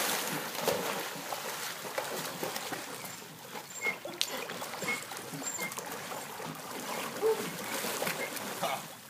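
Pool water splashing and trickling as an Irish Setter puppy paddles and swims, with a few short high chirps.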